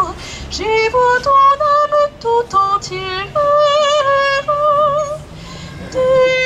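A woman cantor singing solo: a single melody of held notes with vibrato, moving step by step, with a short break for breath about five seconds in.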